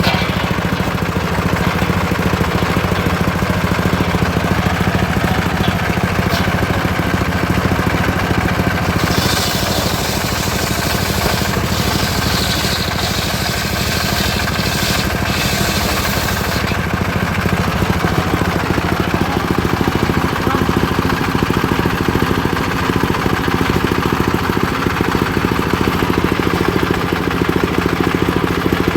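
Engine of a home-built circular sawmill running steadily. For several seconds in the middle a high hiss joins it.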